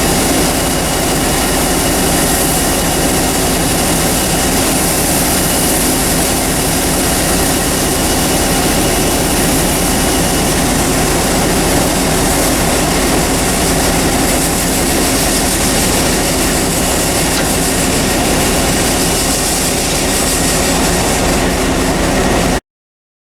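Combine harvester running steadily, a loud, even mechanical drone with a steady hum through it. It cuts off abruptly near the end.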